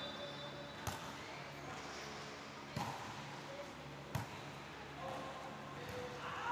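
Volleyball being struck by players' hands during a rally: three sharp slaps, the first about a second in, then roughly every one and a half seconds, over faint voices.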